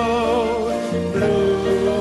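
Live music: voices singing a slow song in long, wavering held notes over band accompaniment.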